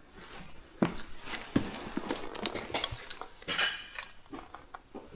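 Irregular clinks, knocks and scrapes of loose slate pieces knocking against each other, with a few louder knocks.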